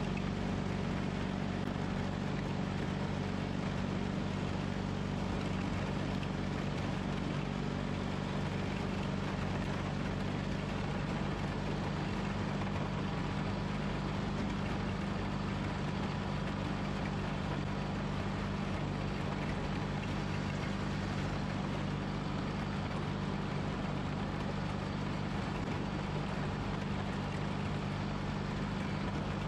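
John Deere 420 garden tractor's engine running steadily while the tractor pushes snow with its front plow blade.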